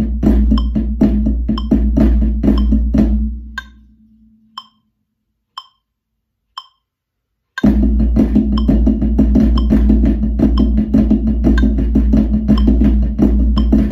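Iron practice sticks playing fast clave-pattern flams on a practice pad over a metronome clicking once a second. The playing fades out about three to four seconds in, leaving a few lone metronome clicks, then starts again abruptly about halfway through.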